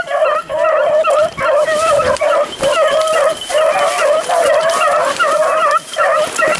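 A pack of beagles baying on a running rabbit: hounds giving tongue almost without a break, their voices overlapping, with a few short pauses.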